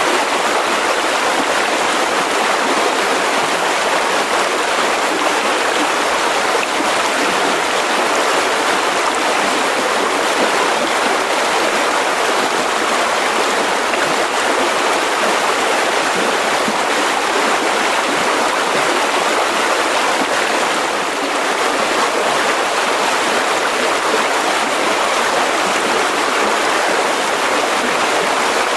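Mountain river rushing over rocks: a steady, full, even rush of flowing water.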